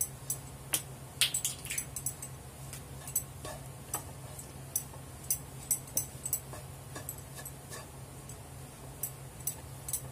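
Wooden spatula stirring and scraping a mashed potato and onion filling in a nonstick frying pan. Irregular light taps and clicks of the spatula on the pan come several times a second, over a low steady hum.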